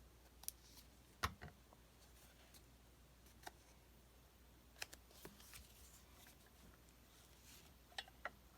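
Near silence broken by scattered light clicks and taps of hands handling paper and craft pieces at a tabletop, the sharpest about a second in.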